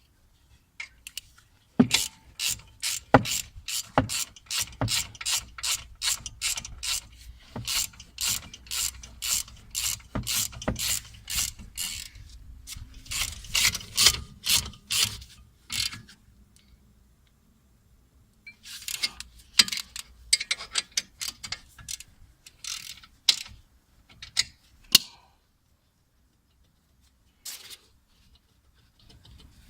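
Hand ratchet wrench clicking as it is worked back and forth in quick strokes on a bolt. There are two long spells of rapid clicking, a pause of a couple of seconds between them, and one last short click near the end.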